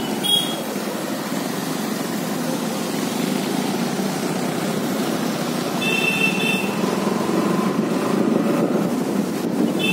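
Steady running and road noise of a moving two-wheeler on a wet road, with short horn toots just after the start, a longer one about six seconds in, and a brief one near the end.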